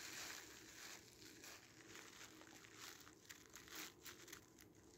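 Near silence with faint rustling and crinkling from a gauze pad being handled and pressed against the ear.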